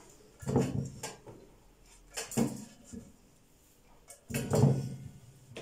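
A silicone pastry brush dipping into a metal bowl of melted ghee and brushing it over an aluminium baking pan: a few brief scrapes and knocks of brush, bowl and pan, about two seconds apart.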